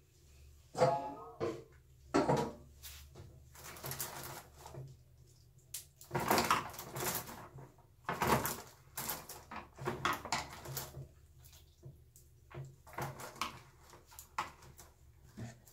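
Bundle of wooden skewer sticks being handled in a plastic jug of hot water: irregular knocks and rattles of sticks against the jug, with water sloshing as the coiled hair is dipped.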